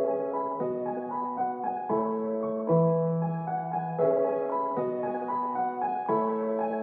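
Background keyboard music with a piano-like tone: held notes and chords that change every second or so over a low bass note.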